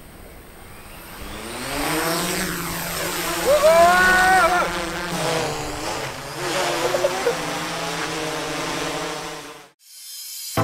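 Cuta Copter Matrix quadcopter's four propellers spinning up and buzzing as it lifts off and climbs, the pitch shifting as it flies. A short tone that rises and then falls comes in about four seconds in, and the sound cuts off suddenly near the end.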